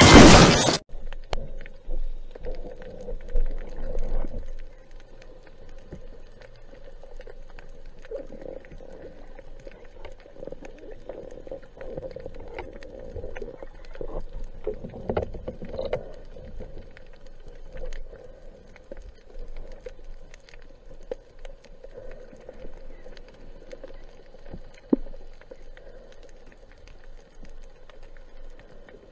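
Underwater sound picked up by a diver's camera: a loud rush of water noise in the first second, then a low, muffled underwater hiss with many faint crackling clicks and a few low rumbles that swell and fade.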